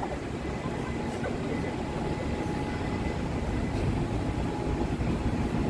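Steady low rumble and hiss of a moving vehicle, with faint steady high tones running through it.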